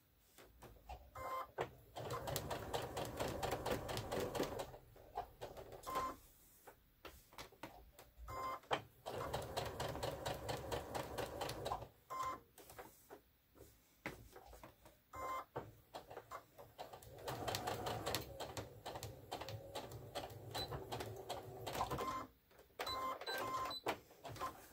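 Electric sewing machine stitching a small square through layered cotton and terry cloth, in three main runs of a few seconds each. The runs stop while the fabric is turned at the corners, with clicks and fabric handling in the pauses.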